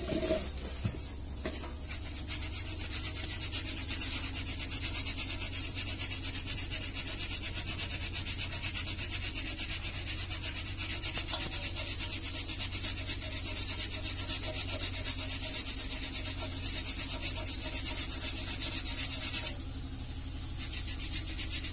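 Rice-flour batter snacks deep-frying in hot oil in a steel wok, a steady crackling sizzle that dips briefly near the end.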